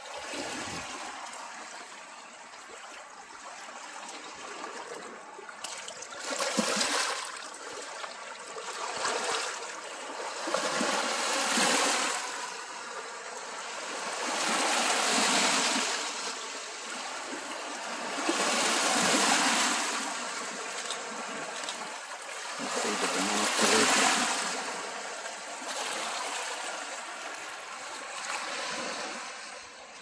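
A shallow woodland creek trickling over stones, then small Lake Superior waves washing on the shore. From about six seconds in, the water sound swells and falls every four seconds or so.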